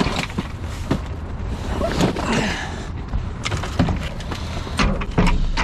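Knocks, clicks and rustling from a gaming chair being handled and pulled about among the trash in a metal dumpster, a dozen or so sharp hits scattered through, over a steady low rumble.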